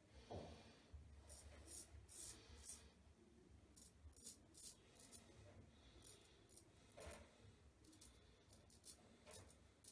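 Custom 7/8 straight razor with an N690 steel blade scraping through lathered stubble on the jaw and neck. Faint short strokes come in quick runs of three or four, about two a second.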